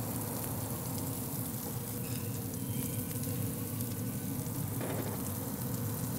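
Buttered onion-roll halves and salmon patties sizzling steadily on a hot cast iron griddle.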